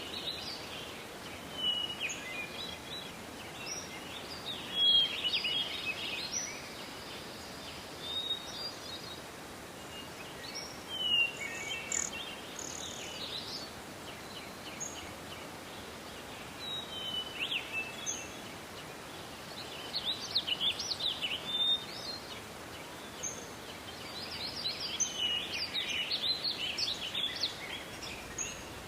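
Forest birdsong: several small birds chirping and trilling in short bursts every few seconds, over a steady soft hiss of background forest noise.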